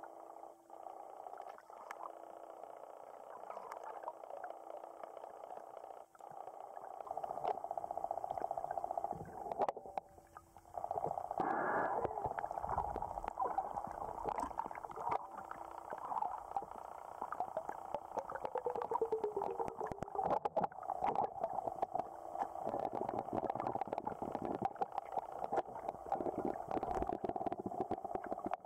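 Muffled underwater sound picked up by a camera below the lake surface: gurgling, crackling water noise with many small clicks, a faint steady hum in the first third, and a short sliding tone about two-thirds of the way through.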